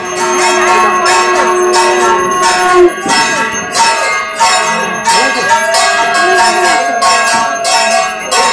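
Puja bells ringing in quick repeated strokes, about three a second, during Kali Puja worship. A steady held note sounds with them and cuts off abruptly about three seconds in.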